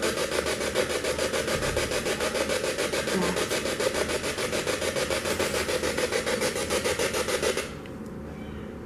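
Spirit box sweeping through radio stations: a rapid, even chop of static that cuts off suddenly near the end.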